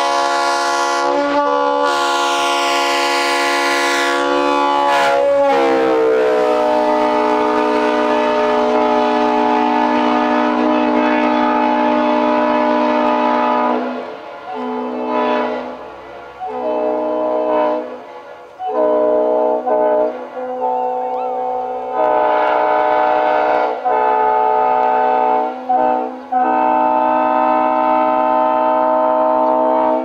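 Leslie RSL-3L-RF three-chime air horn blowing a long held chord, its pitch sagging slightly about five seconds in. After about fourteen seconds it breaks into a series of shorter blasts of uneven length, and the last blast is long and cuts off sharply.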